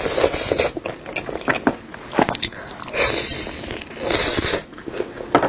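Close-miked eating: a woman bites and chews food held in her fingers, with wet smacking and crunchy clicks. Short, loud, hissy wet bursts come at the start, about three seconds in and about four seconds in.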